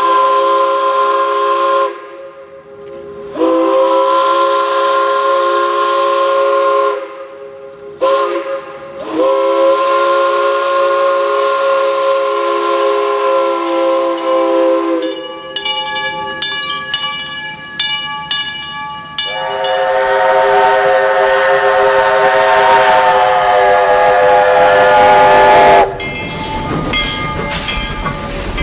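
Small steam locomotive's whistle blowing three long blasts with short gaps between them, the third the longest. Then comes a few seconds of a different, evenly pulsing higher sound, then one more long, somewhat higher blast that breaks off near the end.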